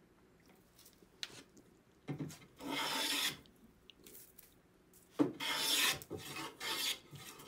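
Stanley No. 22 wooden-bodied smoothing plane taking thin shavings off a board: two long rasping strokes about three seconds apart, each lasting about a second, then shorter, lighter strokes near the end.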